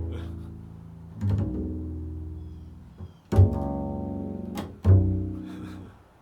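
Improvised solo instrumental music: single low, deep notes, each starting with a sharp attack and ringing away over a second or two. Four new notes sound, the last two in quick succession.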